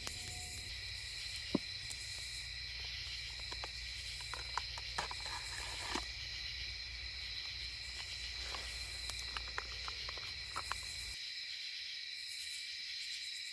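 Insects chirping in a steady, continuous chorus at two high pitches, with scattered light clicks and taps. A low hum underneath cuts off suddenly near the end.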